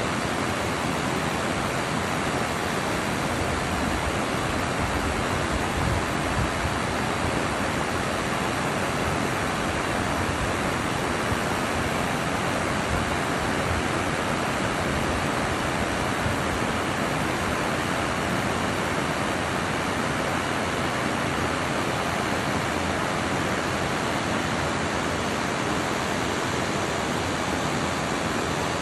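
Steady, even rush of river water spilling over a weir as white water.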